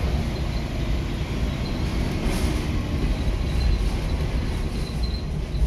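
Leyland National 2 bus's rear-mounted diesel engine running under way, heard from the back of the saloon as a steady, deep rumble.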